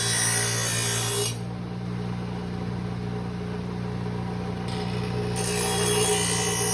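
Grinder wheel running with a steady motor hum while a steel lawnmower blade is ground against it. The grinding hiss drops away about a second in, leaving mostly the motor, and comes back near the end as the blade goes back onto the wheel.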